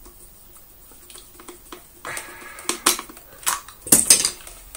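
Hard plastic parts of a Dyson DC24 vacuum and a screwdriver being handled: after a quiet first two seconds, a brief rustle, then a series of sharp clicks and clatters.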